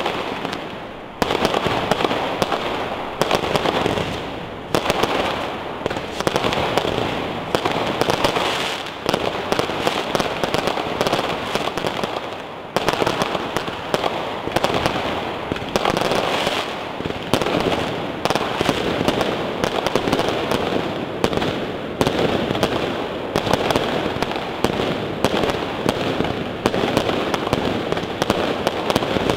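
Fireworks display firing continuously: a dense volley of launches, bangs and crackling bursts, with a new loud salvo every one to three seconds.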